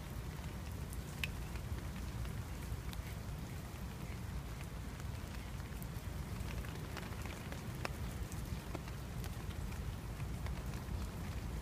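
Light rain: scattered drops ticking irregularly over a steady low rumble.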